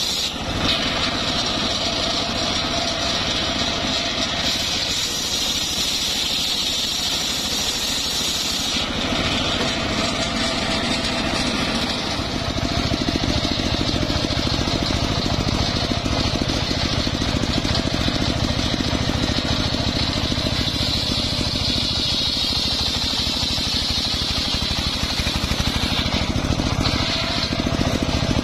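Homemade engine-driven circular saw bench running steadily, its blade ripping through trembesi (rain tree) timber: a constant engine drone under a high blade whine. About a third of the way in the sound shifts, and a few seconds later it grows louder with a heavier low drone.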